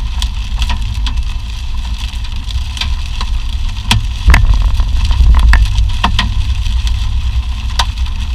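A moving vehicle's low, heavy rumble, with scattered sharp ticks and knocks at irregular moments.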